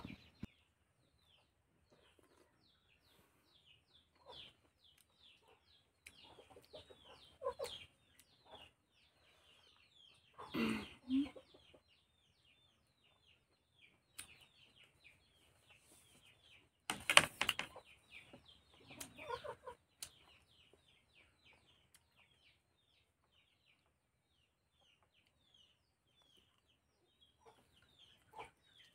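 Chickens: a faint, steady run of short, high, falling peeps, a few a second, with a louder clatter about seventeen seconds in.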